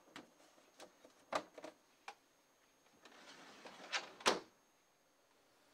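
A plastic ice-roll freezing plate set down in a freezer drawer's plastic bin with a few light knocks, then the freezer drawer slid shut, its slide ending in two knocks, the second the loudest, as it closes.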